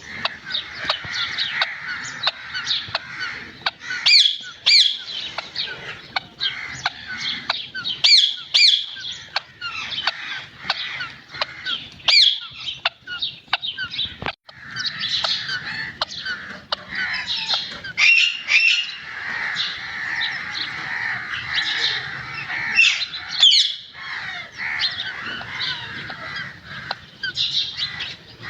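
Green parrot squawking and screeching in many short, sharp calls, some several a second, over a steady background of bird chatter.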